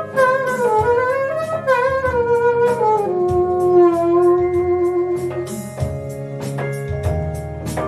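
Saxophone playing a melody over a backing track with drums and bass, ending on a long held note. About six seconds in, the music changes to an electric keyboard.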